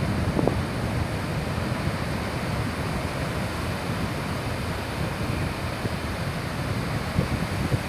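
Sea surf breaking and washing up a sandy beach in a steady rush, with wind rumbling on the microphone.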